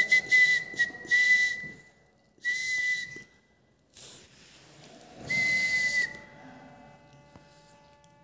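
A high, steady whistle with a hiss, in three stretches: the first about two seconds long at the start, a shorter one about two and a half seconds in, and a last one of under a second about five seconds in.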